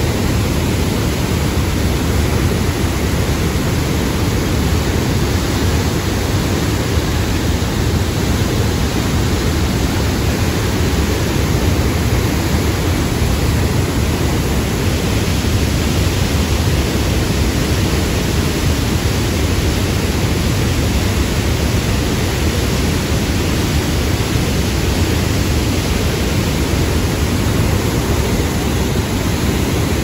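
Turbulent, foaming muddy water churning and rushing: a loud, steady, unbroken rush of water, heaviest in the low range.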